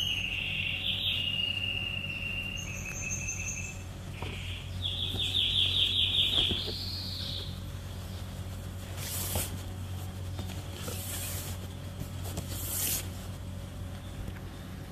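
Repeated high chirps and fast pulsed trills of chirping insects over a steady low hum, with a few brief soft knocks later on.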